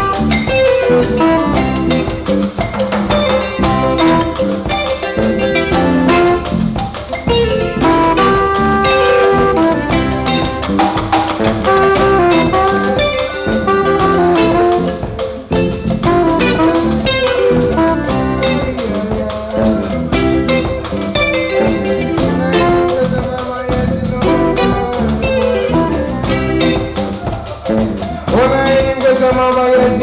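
Live African band music led by a balafon, its wooden keys struck with mallets in fast repeating patterns, over electric bass guitar and drum kit.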